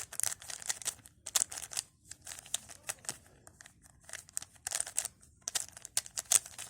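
3x3 Rubik's cube being twisted quickly by hand as it is scrambled. Its plastic layers click and clack in rapid, irregular strings of turns.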